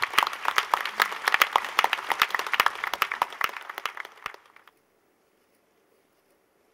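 Audience applauding, many hands clapping, stopping suddenly about four and a half seconds in, then near silence.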